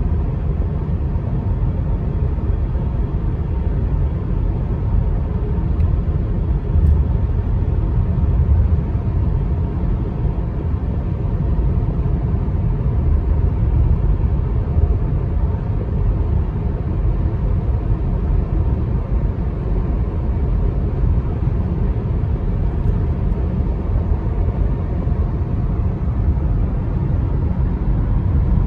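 Steady low rumble of road noise inside the cabin of a car driving at highway speed.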